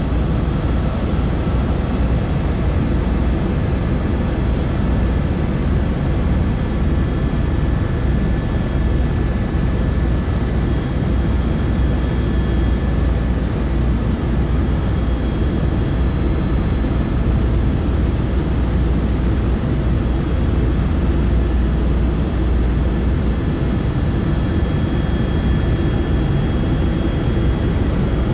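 Helicopter in flight, heard from inside the cabin: a steady, loud engine and rotor drone with a faint high whine over it.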